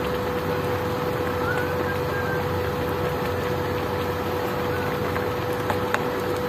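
Portable induction cooktop running under a pan, its cooling fan making a steady whirring hum with a constant tone. A couple of light clicks near the end.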